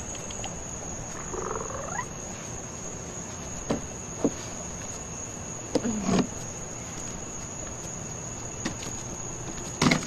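A steady high cricket trill, over which baby raccoons give a couple of short squealing calls, one rising and one falling, with a few light clicks between.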